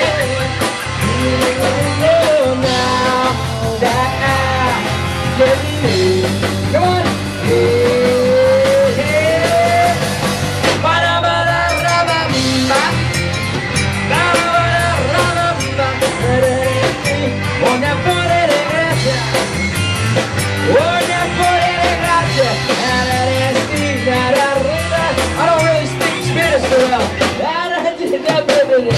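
Live rock band playing a song with a lead singer, drum kit, electric guitar and keyboard.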